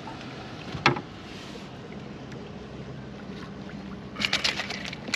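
Steady water and wind noise around a small fishing boat drifting on the channel, with one sharp knock about a second in and a quick run of clicks and rattles near the end.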